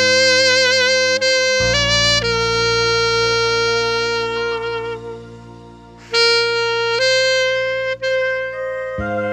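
Instrumental music: a slow melody of long held notes with vibrato over a steady bass backing.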